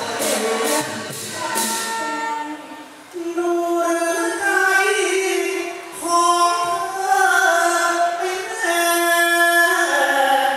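A woman singing likay, the Thai folk-opera style, into a microphone through the stage sound system: long drawn-out notes that bend and waver in pitch. Sharp percussion strokes sound during the first couple of seconds, before the voice carries on alone.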